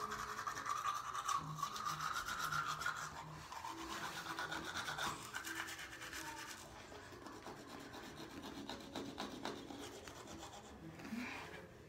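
Teeth being brushed with a manual toothbrush: fast, scratchy scrubbing of bristles against the teeth. The scrubbing is strongest for the first half and then grows softer.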